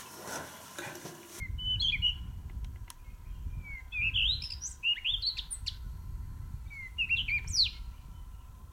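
Wild birds singing in the bush: three or four short phrases of quick chirps and rising whistles, over a steady low rumble. The first second or so is a soft hiss before the sound changes abruptly.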